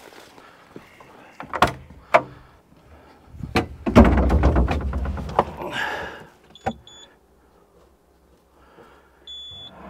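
Operator climbing into a Bobcat 435 compact excavator's cab: a few knocks, then a loud clatter and rustle about four seconds in as he gets in and sits down. Short high electronic beeps follow twice near seven seconds and once near the end, as a steady low hum starts with the machine being readied to start.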